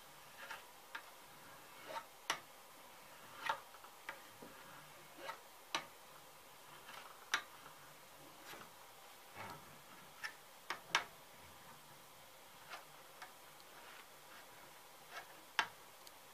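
Steel burnisher stroked along the edge of a spring-steel scraper cut from a kataba saw blade and held in a vise, turning a hook: irregular sharp metal clicks and short scrapes, roughly one a second.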